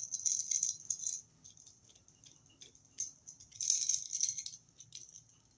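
Small metal tools and hardware rattling and clicking as they are handled, in two bursts: one in the first second and a louder one about four seconds in.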